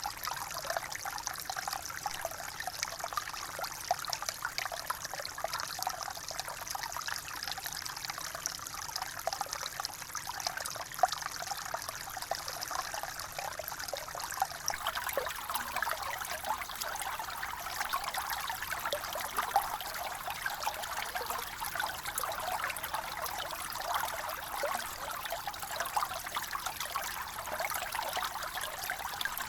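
Water trickling and splashing steadily with many small, quick splashes, like a small stream. About halfway through, the sound changes slightly in character.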